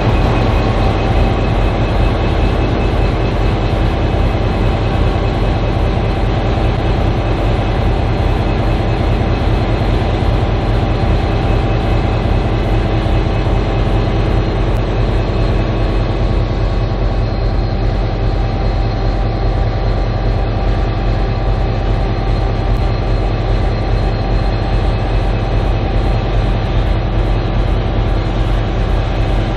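V/Line N class diesel-electric locomotive's engine idling with a steady, loud low drone and hum, its pitch unchanging throughout.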